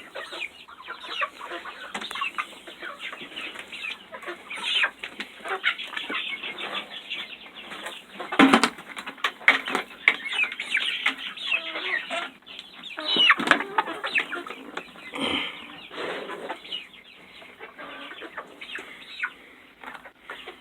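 A flock of young Buff Orpington chickens clucking and chirping in many short, overlapping calls, with a sharp knock about eight seconds in and another around thirteen seconds.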